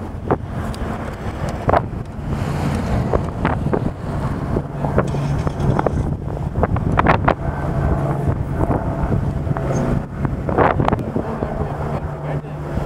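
Wind buffeting the microphone in a loud low rumble. About two seconds in, a steady low hum like a running engine sets in, and short sharp cracks and pops come through it at irregular intervals.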